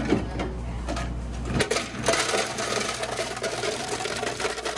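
Ice cubes pouring out of an ice dispenser's chute into a plastic food pan. A knock as the pan is set under the chute, then a dense rattle of ice starting about a second and a half in.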